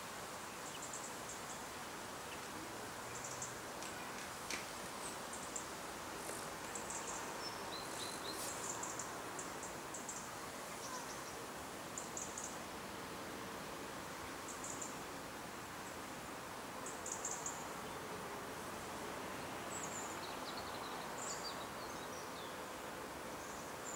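Steady outdoor background hiss with scattered short, high-pitched bird chirps, a few gliding down in pitch near the end.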